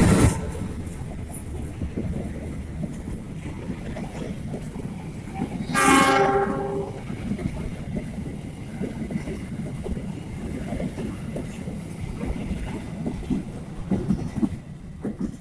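Green parcel wagons of a train hauled by a CC206 diesel-electric locomotive rolling past, a steady rumble with wheel clicks over the rail joints. About six seconds in, a train horn sounds once for about a second.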